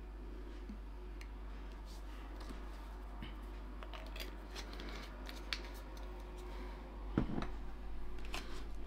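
Small clicks and taps of a sauce bottle and cutlery being handled at the table, with a louder knock about seven seconds in, over a steady low electrical hum.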